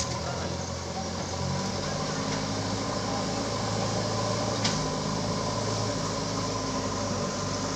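JCB backhoe loader's diesel engine running steadily, its pitch shifting slightly, with one sharp click about four and a half seconds in.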